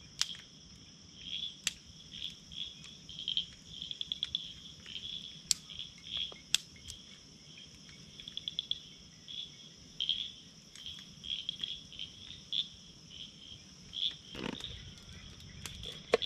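Evening chorus of crickets and other night insects: a steady high buzz under repeated chirping trills. Sharp pops from a crackling wood campfire come every few seconds, and there is a short rustle near the end.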